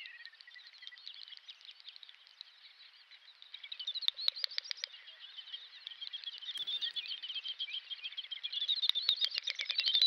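Chorus of small songbirds singing and chirping: high-pitched rapid trills and quick rising and falling notes overlapping, sparser at first and busier from about four seconds in.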